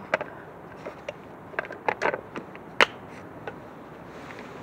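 Cats crunching cat food: irregular sharp crunches and clicks, about a dozen over a few seconds, the loudest near the middle.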